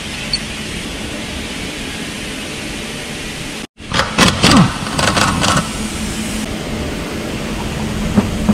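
Pneumatic impact wrench rattling briefly on the wheel nuts of a VW Transporter T5's rear wheel, its pitch dropping as it stops, over a steady background hiss.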